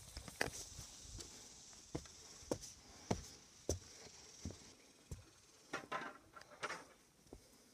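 Footsteps at an unhurried walking pace, a short knock roughly every half second to second, with some rustling near the end over a steady high hiss.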